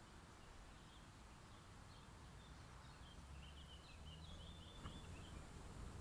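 Near silence: faint outdoor ambience with a low rumble, and a faint bird twittering from about two and a half to five and a half seconds in.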